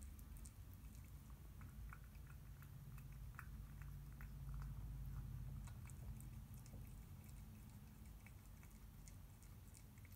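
A cat chewing and eating cat food from a stainless steel bowl: faint, irregular small clicks and smacks of its mouth. Underneath is a low steady hum that swells around the middle.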